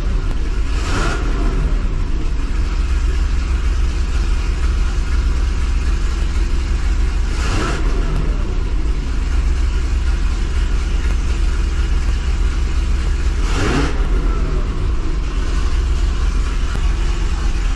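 2005 Chevrolet Corvette's 6.0-litre LS2 V8 idling through long-tube headers, blipped to partial throttle three times, each rev rising and dropping back to idle. It picks up without the tip-in hesitation that the header exhaust leaks had caused, the owner judging it about 99% gone.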